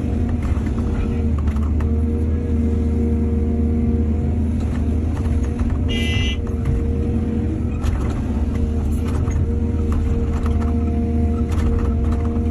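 Excavator's diesel engine running steadily under load, with scattered knocks and clanks. A brief high-pitched squeal comes about six seconds in.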